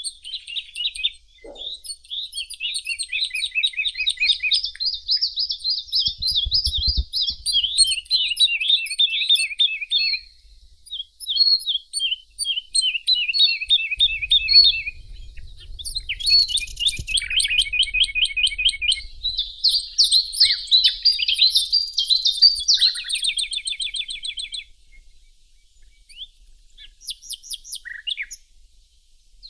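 Several songbirds singing and chirping rapidly, with dense overlapping phrases that thin out near the end.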